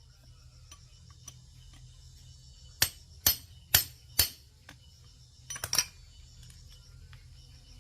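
Hammer blows on a metal machine part: four sharp strikes about half a second apart, then a quick double knock a little later.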